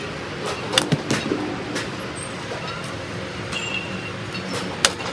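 A few sharp knocks of baseballs in a batting cage, balls from a pitching machine striking as the batter swings: two close together about a second in and the sharpest near the end, over a steady hum of traffic.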